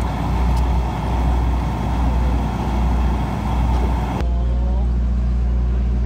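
Steam-styled diesel locomotive of a sightseeing train idling at the platform: a rough, uneven low rumble that changes abruptly about four seconds in to a steady engine hum.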